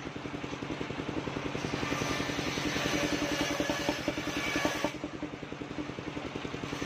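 Engine-driven mobile circular sawmill ripping a timber plank: the engine chugs steadily under the rasp of the large circular blade cutting through the wood. The cutting noise dips about five seconds in, then picks up again.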